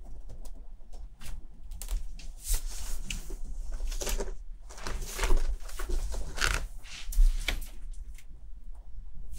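Irregular rustling and crinkling of a quilted disposable pet pad as a young kitten wriggles and rolls on it, in bouts that are densest a few seconds in and again after about six seconds.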